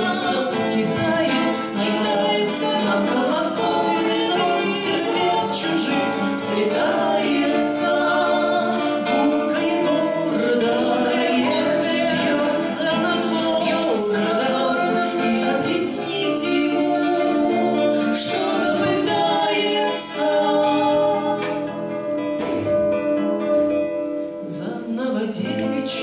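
Two women singing a Russian bard song in duet, accompanying themselves on two strummed acoustic guitars.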